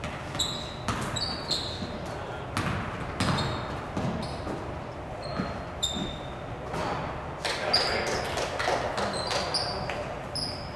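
Basketball bouncing and knocking on a hardwood gym floor during play, with short high sneaker squeaks as players cut and run. The squeaks rise in pitch near the end.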